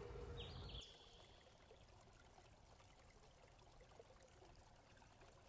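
Near silence: faint steady outdoor hiss. Near the start a low rumble stops abruptly, and there is one short high-pitched call.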